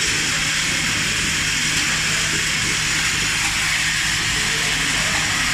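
Effervescent tablet packaging machine running: a steady hiss over a low rumble, with a constant low motor hum.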